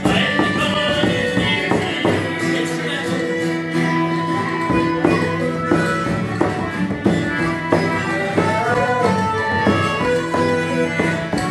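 Celtic traditional session music: a bodhrán frame drum beats a steady rhythm under stringed melody instruments playing a tune.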